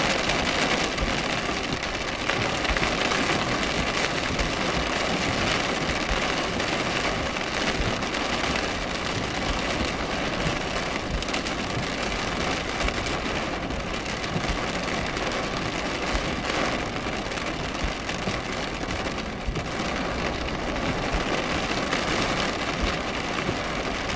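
Rain falling steadily on a moving car's roof and windscreen, heard from inside the car as an even hiss, with the car's road noise underneath.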